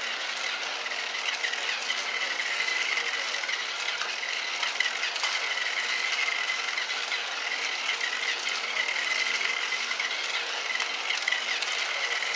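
Battery-powered light-up toy race car running laps on a flexible plastic track: its small electric motor gives a steady high whine, with a fine rattle from the wheels over the track segments.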